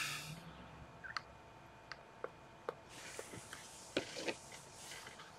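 A quick breath in at the start, then a scattering of about seven faint, sharp clicks of a computer mouse, spaced irregularly, with a soft hiss in the middle.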